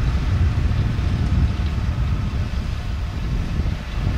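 Ford 6640 tractor's diesel engine running steadily under load as it pulls a rotary hay tedder, heard as an even low rumble.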